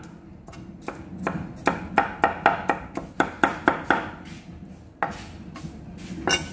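Cleaver chopping garlic cloves on a wooden chopping board. Quick knocks come about three or four a second, thin out after about four seconds, and there is one sharper knock near the end.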